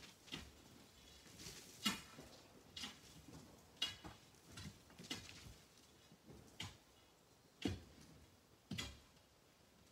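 A metal tool striking rock in a string of about nine sharp, faint knocks, irregular but roughly one a second, some with a short metallic ring.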